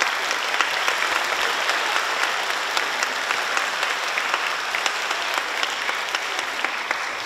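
Audience applauding, a dense clatter of many hands clapping that thins out near the end.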